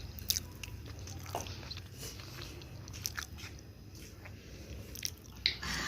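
Close-up eating sounds: someone biting and chewing a mouthful of pork and rayo saag (mustard greens), with scattered short, sharp clicks and smacks.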